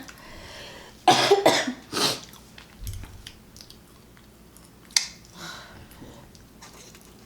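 A person coughing in a quick run of harsh bursts about a second in, then once more near five seconds.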